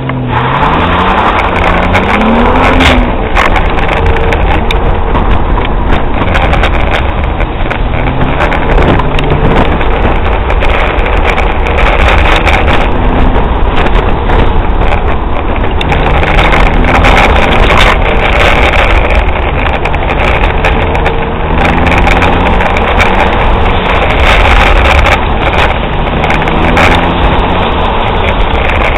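BMW E36 328i's straight-six engine pulling hard from a launch, its pitch climbing and falling again and again as the car accelerates and slows between cones, heard from inside the cabin.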